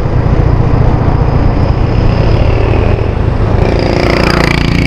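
Suzuki Skydrive scooter's engine running steadily under throttle while riding uphill, heard from on the bike. About four seconds in, a higher whine rises in pitch.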